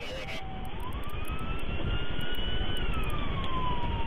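Police car siren wailing in one slow rise and fall over a steady rumble of road and engine noise, heard from inside the pursuing cruiser.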